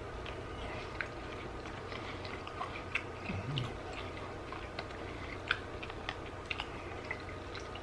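A man chewing a bite of a fried chicken sandwich: soft, irregular crunching clicks and wet mouth sounds, with a brief low hum about three and a half seconds in.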